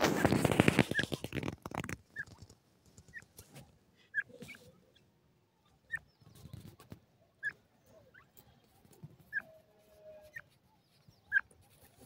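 Grey francolins in sand: a loud rapid rustling flurry for about the first two seconds, then short high peeps about once a second.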